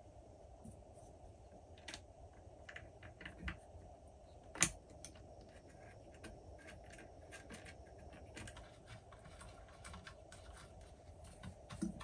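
Faint, scattered clicks and taps of small parts being handled and fitted while a Marlin 60 .22 rifle is reassembled, with one sharper click about four and a half seconds in.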